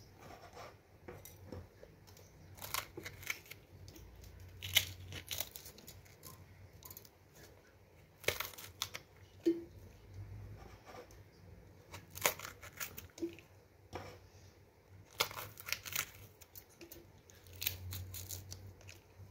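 Kitchen knife cutting green chillies into coarse pieces over a stainless steel grinder jar. Irregular sharp cuts and taps come every second or two as the blade goes through the chillies and the pieces drop into the jar.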